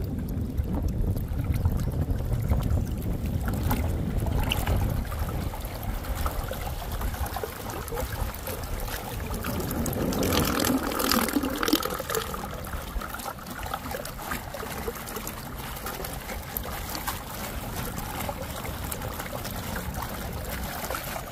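Water churning and trickling in the motor well of an inflatable boat as a 12V electric trolling motor's propeller turns, with a steady wash of water along the hull. A gurgle rises and falls in pitch about ten seconds in.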